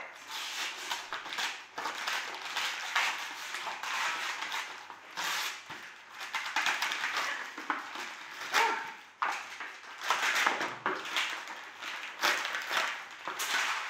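Wrapping paper being torn and crumpled off a gift box: a run of irregular rips and crinkling rustles.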